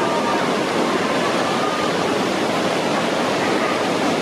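Whitewater rapids rushing steadily: a constant, even noise of churning river water.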